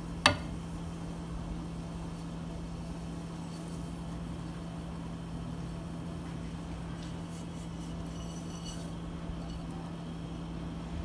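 A single sharp clink of a utensil against a dish about a third of a second in, then a steady low hum with faint kitchen noise.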